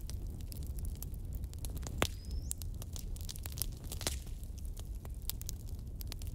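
Knife cutting through dry samosa pastry sheets on a stainless-steel plate: scattered clicks and scrapes of the blade against the metal, over a steady low rumble. A sharper click about two seconds in is followed by a brief high ring.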